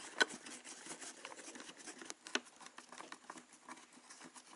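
Faint, scattered clicks and scrapes of a small screwdriver tightening the little screws of a helmet LED light's plastic battery cover, with two sharper clicks, one just after the start and one a little over two seconds in.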